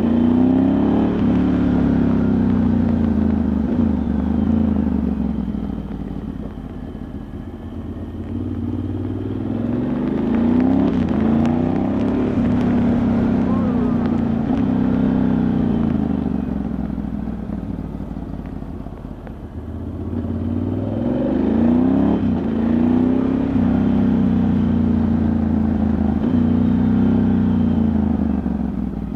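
Ducati Multistrada 1100S's air-cooled L-twin engine under way downhill, its revs climbing and dropping over and over as the rider works the throttle and gears. It eases off and goes quieter twice, about seven and nineteen seconds in, before pulling again.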